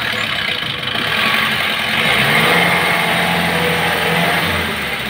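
Odong-odong tourist train's tractor engine running as it pulls its carriages past. Its pitch rises about two seconds in, holds steady, and falls back near the end.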